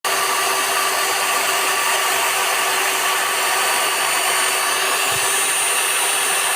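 Electric drill running at a steady speed, a constant whine over an even rushing noise.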